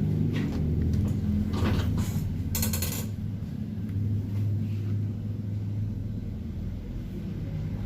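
A short mechanical rattle of rapid clicks about two and a half seconds in, after a few softer clicks, over a low steady hum.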